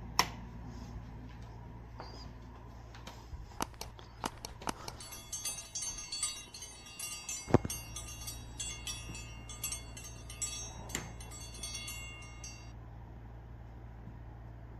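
A few sharp clicks, then several seconds of light, high metallic jingling with more clicks mixed in, over a steady low hum.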